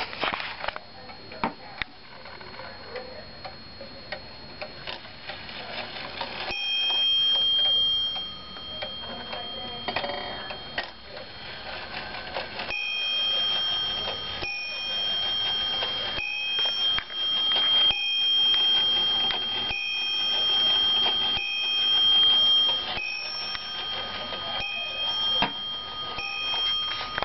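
Dutch Friese tail wall clock ticking steadily, then its striking train sounding a bell repeatedly, each stroke ringing on into the next.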